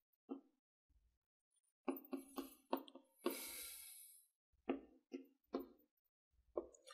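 Chalk on a blackboard: scattered short taps, with a quick run of them about two seconds in as dashed lines are drawn, and a brief scraping stroke just after three seconds.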